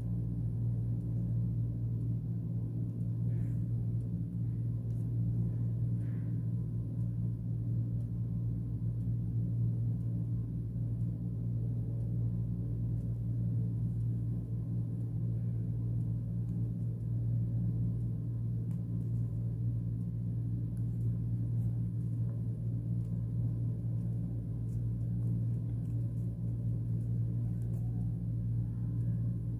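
A steady low hum that does not change, with a few faint soft ticks.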